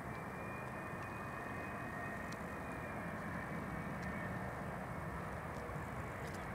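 Fokker twin-jet airliner with rear-mounted Rolls-Royce Tay engines on short final to land, heard faintly at a distance: a steady rushing jet noise with a thin whine that falls slightly in pitch.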